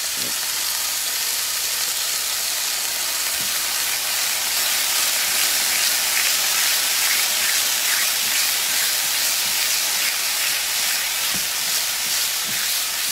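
Thin slice of gochujang-marinated beef searing in a hot pan, a steady sizzle that grows a little louder a few seconds in. It is a high-heat sear, quick and hot, of a lean cut in a sugary marinade.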